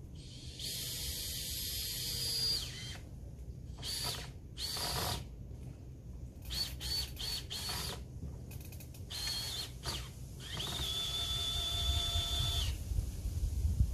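Power drill run in a series of trigger bursts with a steady high whine, as it fastens the wooden fence frame. There are two long runs of about two seconds, one near the start and one near the end, with several short blips in between.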